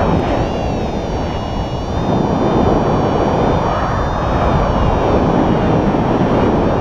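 Wind rushing over the camera microphone of a paraglider in flight: a loud, steady rush with a faint wavering whistle above it.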